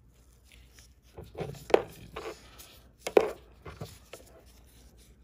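Handling noise from gloved hands setting up a coin on an electronic metal verifier: light rustles and taps with two sharp knocks about a second and a half apart.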